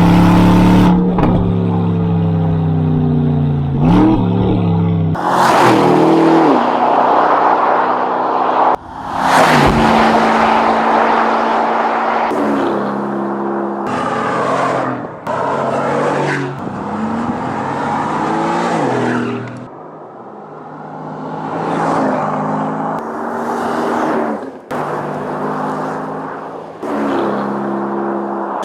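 Aston Martin grand-tourer engines and exhausts in a run of short, abruptly cut clips: the engines rev up and fall back, the pitch rising and dropping again and again, with a few bursts of rushing noise in between.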